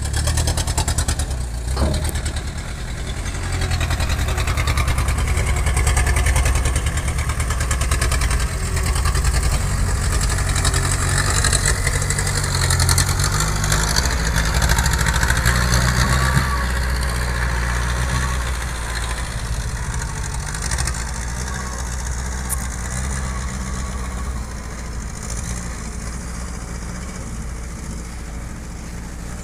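Mitsubishi Canter dump truck's diesel engine running, with a single sharp knock about two seconds in. The engine sound eases off gradually through the second half as the truck moves away.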